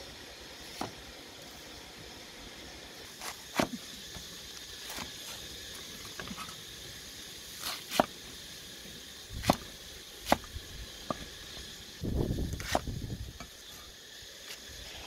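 Cleaver chopping a cabbage on a wooden stump chopping block: about ten sharp chops, irregularly spaced a second or two apart, over a steady background hiss. A short low rumble comes near the end.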